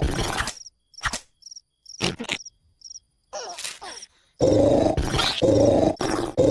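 Loud cartoon snoring from an animated larva: one snore at the start and a run of snores from about halfway on, with short, high cricket chirps repeating in the quiet between them and a few sharp clicks.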